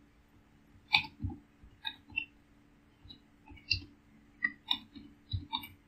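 Typing on a computer keyboard: an uneven run of about a dozen short key clicks with brief pauses between them.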